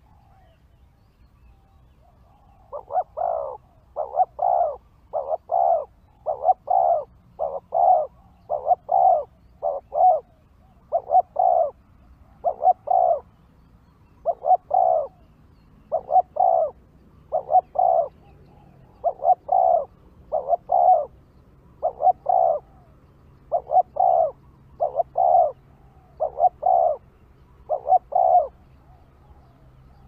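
Spotted dove calling: a long series of short coos, many in close pairs. They start about three seconds in and stop shortly before the end.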